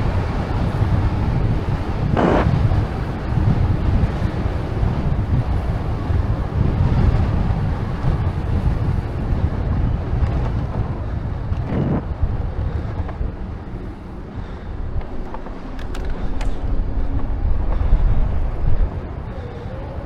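Wind buffeting the microphone of a moving bicycle rider, a heavy, fluctuating low rumble, with two brief louder bursts about two and twelve seconds in.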